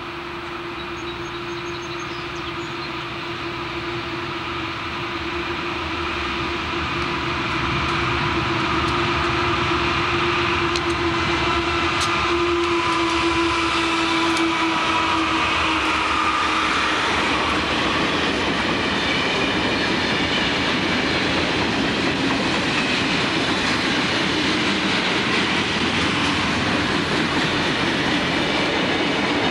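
Conrail diesel-hauled freight train passing close by. The locomotives' steady engine drone grows louder over the first several seconds and fades about halfway through. After that comes the steady rumble and clatter of hopper and tank cars rolling over the rails.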